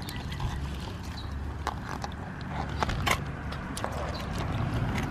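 Scattered clicks and clacks as metal kitchen tongs grab live blue crabs and crawfish in a tub of water, over a low steady rumble.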